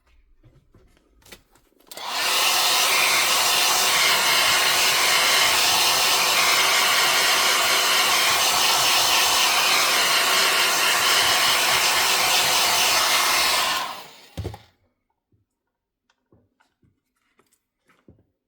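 Electric air blower of the heat-gun or hair-dryer type, switched on about two seconds in. It runs steadily for about twelve seconds, then cuts off, followed by a single low thump.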